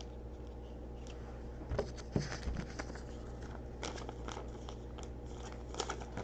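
Short rustles and light clicks of trading cards and their packs being handled, in a few clusters against a faint steady hum.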